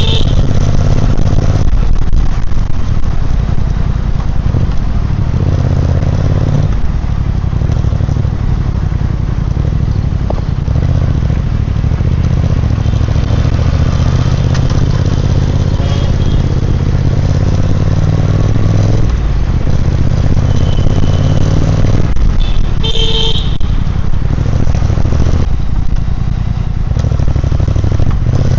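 Triumph Speed Twin 1200's parallel-twin engine and exhaust running steadily, its note shifting a little in pitch. A brief high tone sounds about two-thirds of the way through.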